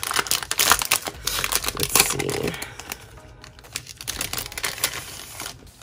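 Clear plastic sleeve crinkling and crackling as it is pulled open by hand, loudest in the first two and a half seconds, then softer.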